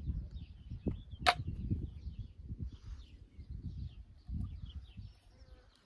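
Wind buffeting the microphone in irregular low rumbles, with small birds chirping and a sharp click a little over a second in.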